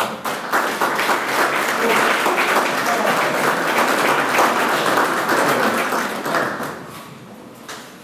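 Audience applauding, dying away about seven seconds in, with a few last claps near the end.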